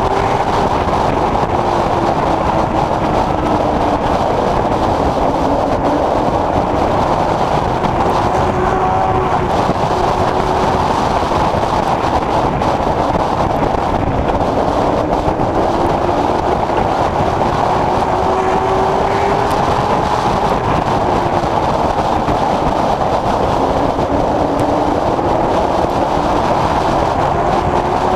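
Late Model Stock race car's V8 engine running hard, heard from inside the cockpit. Its pitch slowly rises and falls a few times as the car laps the oval, over a constant dense roar of engine, drivetrain and tyre noise.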